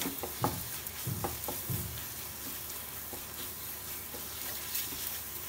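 Grated raw mango pickle sizzling in oil in a metal pot while a spatula stirs and scrapes through it, with a few sharp knocks of the spatula against the pot in the first two seconds. This is the final low-flame frying of the mixture.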